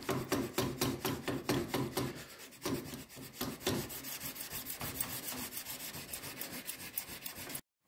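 600-grit CBN (cubic boron nitride) plate in a holder rubbed dry over a knife blade in quick back-and-forth strokes, several a second, hand-finishing the blade. The rasping cuts off suddenly just before the end.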